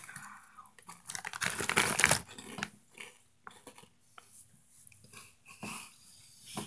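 Hot Cheetos being bitten and chewed close to the microphone: crunching that is loudest about a second in, then softer scattered crunches.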